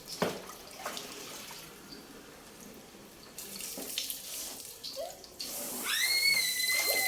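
Water running from a tap and splashing during a dog's bath, with a few short knocks. A steady high-pitched tone comes in about five and a half seconds in.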